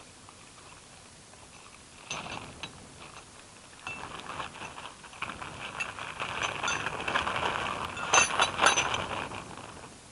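Parts of a garden shredder being handled while a cover is fitted: scattered clicks and rattles, getting busier from about four seconds in, with the loudest sharp clicks near the end.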